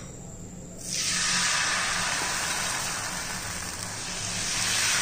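Ragi dosa batter sizzling as it hits a hot dosa tawa: a steady hiss starts suddenly about a second in and carries on while the batter is spread with the ladle.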